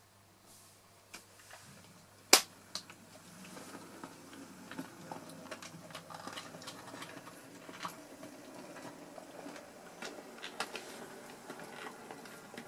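Hornby OO gauge Q6 model steam locomotive running along the layout track. After a single sharp click about two seconds in, a rattling rumble of wheels and motor grows louder as it comes past, with scattered clicks over the track.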